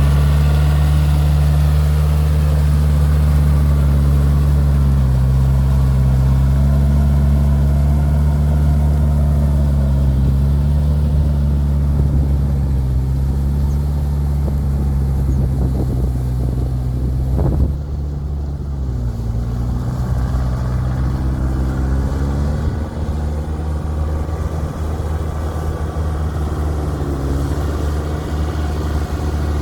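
KIOTI DK4510 tractor's diesel engine running at steady throttle. About 17 seconds in there is a brief sharp knock and the loudness drops. The engine note then sags for a few seconds and climbs back.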